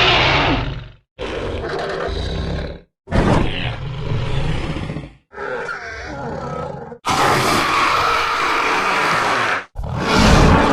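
Custom kaiju roar sound effects for Titanosaurus, built from layered tyrannosaurus roar and deep beast growl samples: a string of separate growls and roars, each one to three seconds long and cut off sharply, with the longest and fullest roar about seven seconds in.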